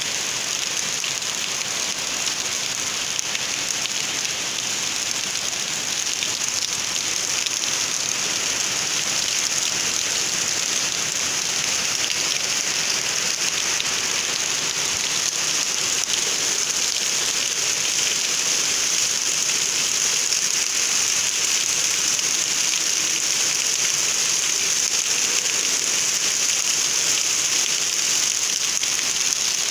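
Steady rain, a dense even hiss of drops hitting the ground, roofs and trees, growing a little louder about eight seconds in.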